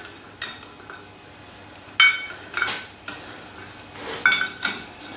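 Sharp metallic clinks and knocks, each with a brief ring, about half a dozen spread unevenly, as an old Douglas metal shaper's drive is turned over by hand at its flywheel.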